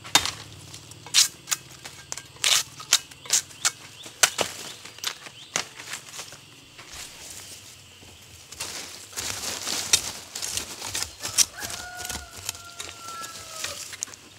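Dry bamboo leaves and twigs crackling and snapping underfoot and under hand as a bamboo shoot is dug out of the leaf litter. There are sharp snaps and knocks in the first half, then a denser rustle of leaves.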